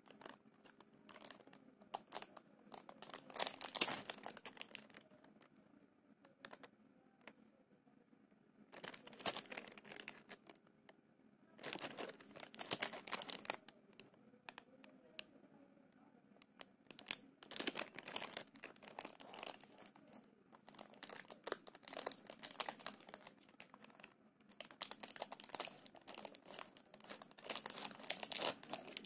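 Shiny plastic wrapper of a sweets pack crinkling in the hands, in repeated bursts of crackle with quieter pauses between as the pack is handled and turned over.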